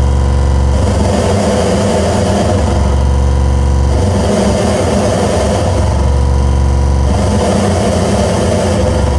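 Loud droning noise music from a live experimental set: a deep low hum that swells in and drops out every couple of seconds under a steady wash of hiss and crackle.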